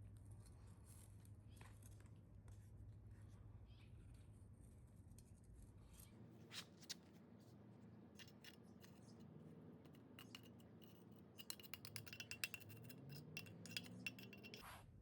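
Faint, scattered clicks and scratching, turning into a quick run of small clicks and scrapes near the end, over a low hum that stops about six seconds in.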